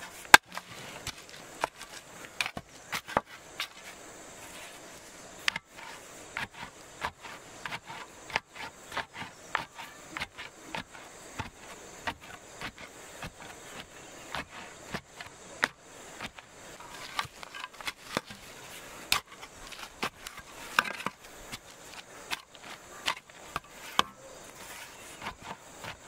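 Wooden pole tamping backfilled earth around a wooden post: a run of short, sharp thuds and knocks, roughly one or two a second, as the soil is rammed down.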